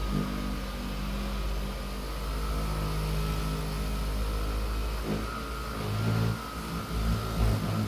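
Electric polisher running steadily on a headlight lens: a motor hum with a thin whine above it. Its pitch and level waver from about five seconds in as the load on the pad changes.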